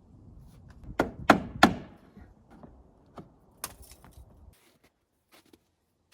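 Nails being driven into a wooden trim board: three quick sharp knocks about a second in, then another about two seconds later, with lighter knocks between.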